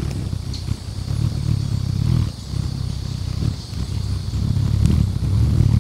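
Several white-necked jacobin hummingbirds hovering close to the microphone at a feeder: a low, buzzing wing hum that swells and fades as birds fly in and out, with a couple of brief high ticks.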